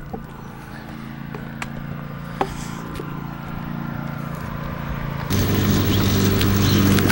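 Lawn mower engine running steadily and growing louder, then jumping sharply louder about five seconds in, with a few light clicks early on.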